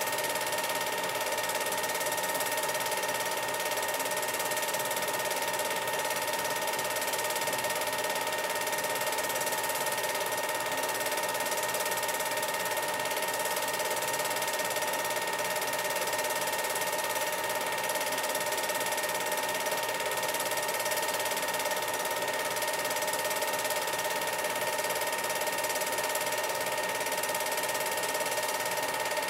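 Film projector running: a steady mechanical whir and hum with constant tones, unchanging throughout.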